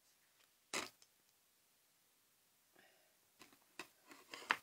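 A few light clicks and taps of card stock and a clear plastic plate being handled on a cutting mat: one sharp click under a second in, then a scatter of small clicks and rustles with the loudest near the end.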